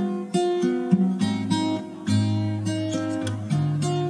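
Background music on acoustic guitar: chords and notes plucked one after another, each ringing on.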